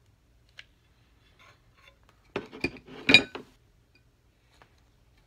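A hot glue gun set down on a glass plate: a quick cluster of clinks and knocks about two and a half to three and a half seconds in, after a few faint ticks.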